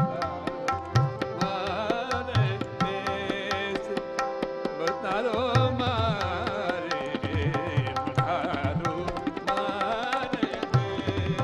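Hindustani music ensemble: tabla playing a steady rhythm with deep bass-drum strokes, over the held drone of harmonium and tanpura. A male voice sings wordless, wavering ornamented runs above them.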